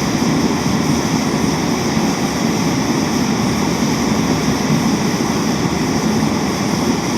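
Butane/propane canister backpacking stoves of the Pocket Rocket type burning at full throttle, a loud, steady hissing rush of gas flames.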